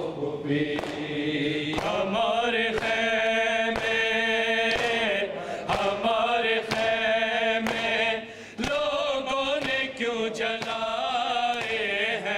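Men's voices chanting an Urdu noha, a Shia lament, in unison, with a long melodic line that bends in pitch. Sharp slaps fall in steady time about once a second: matam, hands beating the chest in rhythm with the recitation.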